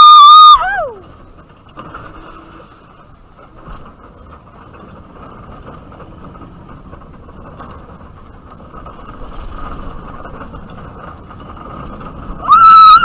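Bobsled roller coaster car rolling and rattling along its slatted trough. A loud, high-pitched scream ends in a falling pitch about half a second in, and another short scream rises and falls near the end.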